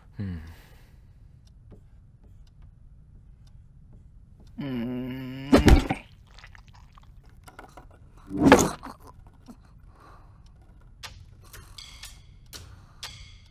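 Sparse sound effects over a low steady hum: a short pitched drone ending in a sharp knock, then a louder thud a few seconds later, and scattered small clicks near the end.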